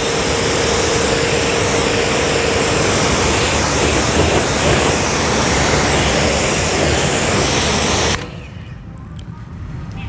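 Btali 2200HPW induction-motor pressure washer spraying a high-pressure water jet through a 25-degree nozzle onto a car: a loud, steady hiss of the jet and pump. It cuts off suddenly about eight seconds in when the spraying stops.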